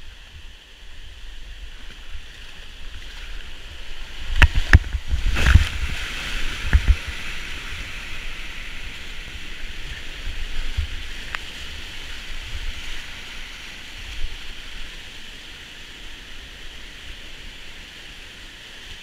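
Steady rushing whitewater of a creek rapid below a low dam, heard close up from a kayak running it, with a cluster of loud knocks and splashes about four to seven seconds in and a few fainter ones later.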